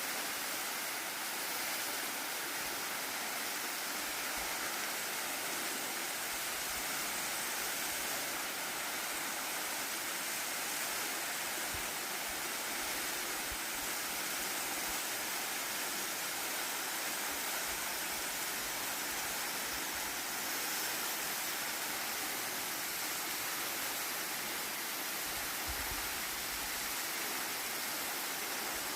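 Waterfall pouring, a steady, even rushing of falling water.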